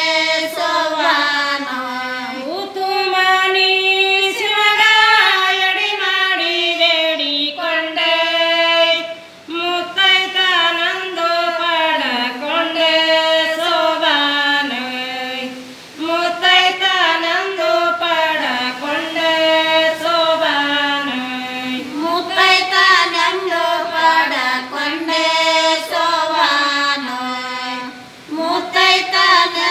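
Women singing a Kannada sobane folk song without instruments, in long melodic phrases with short breaks between them.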